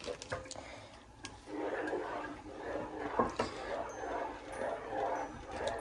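Plastic spoon stirring melting shredded cheese into a thick cream sauce in a frying pan. A few light clicks of the spoon against the pan come first, then a steadier scraping and sloshing about a second and a half in.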